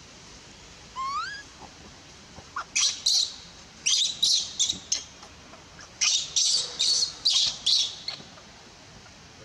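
Baby macaque crying: one rising whimper about a second in, then over a dozen short, shrill screams in three quick runs. These are an infant's distress cries as its mother pushes it away and refuses to let it nurse.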